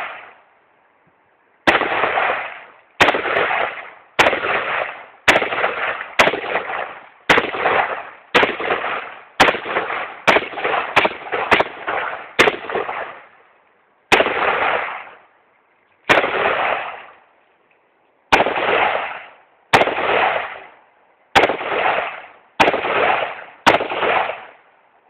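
A rifle fired shot after shot, about twenty sharp cracks spaced half a second to two seconds apart, each trailing off over about a second, with a longer pause in the middle of the string.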